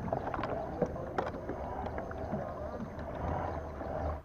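Pedal-drive kayak being pedalled slowly: a steady whirr of the drive and water moving along the hull, with a few light clicks.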